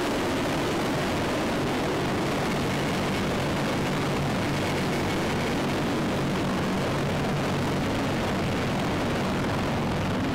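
Large military transport helicopters landing: a steady, even rush of rotor and turbine noise, with the wind of their rotor wash.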